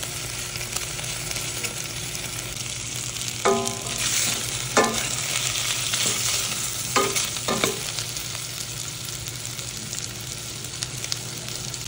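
Pork cubes frying in a stainless steel pot over very low heat, with a steady sizzle; the little oil has almost cooked away as the pork turns golden brown and crisp. A few brief squeaks cut through the sizzle in the middle.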